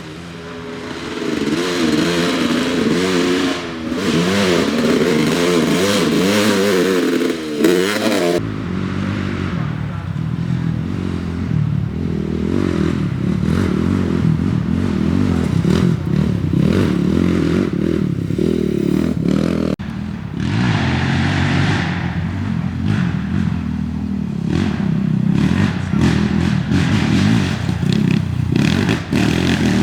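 Off-road race vehicle engines running and revving, in a string of edited clips: a wavering, rising-and-falling rev for the first eight seconds, then after a sudden cut a lower, steadier engine sound, with another abrupt cut about twenty seconds in.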